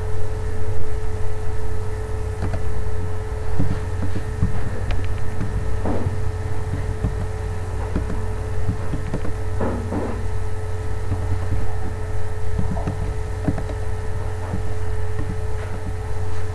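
Scattered soft clicks of computer keyboard keys being typed at an irregular pace, over a steady low electrical hum with a faint steady tone above it.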